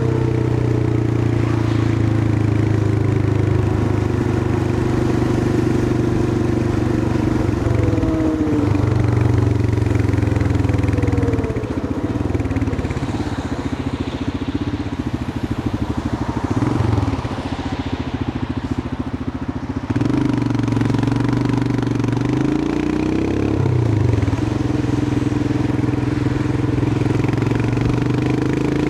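Royal Enfield Himalayan 411's single-cylinder engine running as the motorcycle rides along, with the engine note falling and rising as the throttle changes. It goes quieter for several seconds in the middle and picks up again about twenty seconds in.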